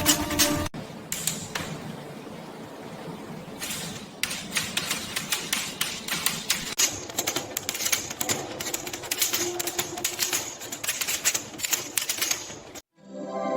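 Restored vintage manual typewriter being typed on: a long, irregular run of quick key strikes clicking and clacking. It stops about a second before the end.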